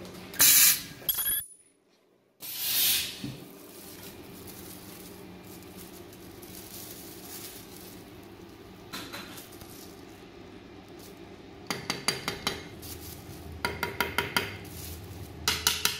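Ultrasonic plastic welder giving two short loud bursts in the first three seconds as it seals a graded-card holder. Near the end come quick runs of sharp clicking and clacking as the hard plastic holder is shaken and handled.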